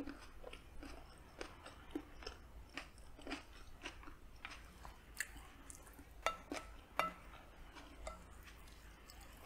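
Close-miked chewing of a mouthful of rice and cherry tomato, a run of soft irregular wet clicks, with two sharper clicks a little over six and seven seconds in.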